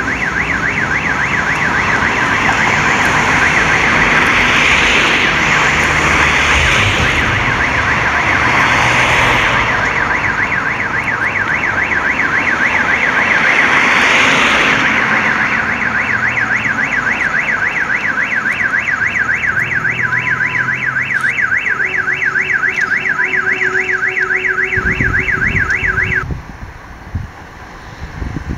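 Electronic alarm tone warbling rapidly and steadily, then cutting off suddenly near the end. A rushing noise swells and fades several times over it in the first half.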